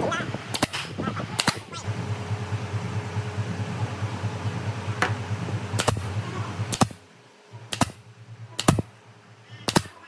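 A series of sharp clicks or taps, roughly one a second, over a steady low hum that cuts off about seven seconds in.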